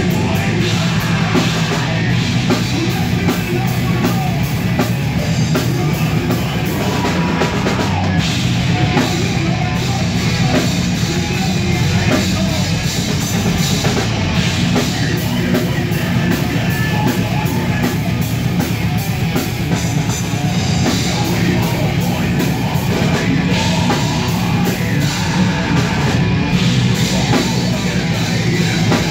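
Heavy metal band rehearsing live: distorted electric guitars over a Ludwig drum kit with steady, dense drumming and cymbals, loud throughout.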